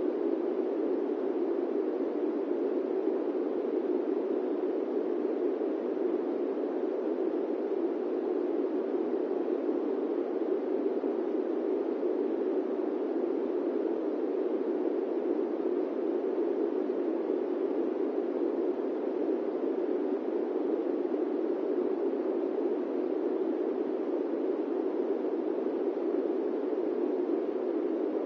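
Electric fan running steadily: an even, unbroken rushing noise that sits in the lower middle range, with no hum, clicks or changes.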